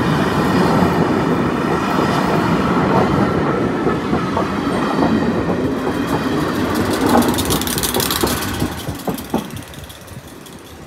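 The Belmond British Pullman, a diesel-hauled rake of Pullman coaches, rolling past on the rails with a steady rumble and a few clicks of wheels over rail joints. The sound fades away near the end as the train moves off.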